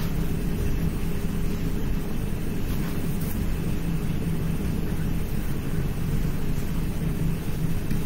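Steady low rumbling hum with no speech, even throughout.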